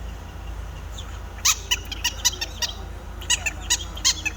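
A person imitating a parrot's calls with his voice: a run of short, sharp, high chirps, several a second, starting about a second and a half in.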